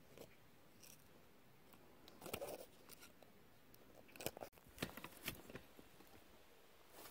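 Faint knife strokes on a thin wooden stick: a short scrape about two seconds in, then a few quick cuts and clicks between four and five and a half seconds.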